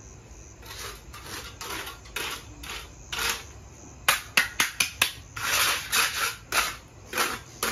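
Mason's trowel scraping and smoothing wet cement on a freshly cast floor, in repeated short strokes, with a quick run of sharper taps about four seconds in.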